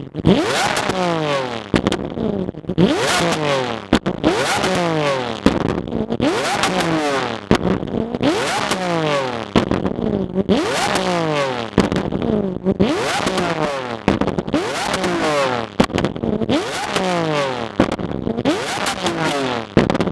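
A supercar's engine is revved in repeated blips, roughly one every two seconds. Each time the revs climb, drop back, and crackle and pop from the exhaust as they fall.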